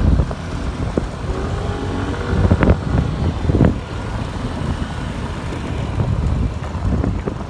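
Motor vehicle engine running on the move, with a low rumble and wind noise on the microphone. A few sharp knocks come about two and a half to three and a half seconds in.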